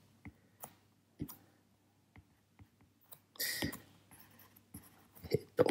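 Stylus tapping and scratching on a tablet screen during handwriting: a few light, scattered clicks, with a louder noisy sound lasting about half a second roughly three and a half seconds in.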